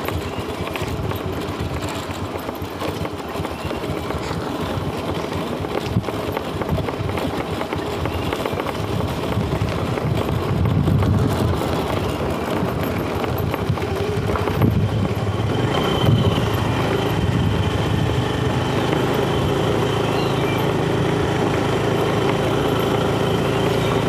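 Motorcycle engine running steadily while riding along a dirt road, getting slightly louder about halfway through.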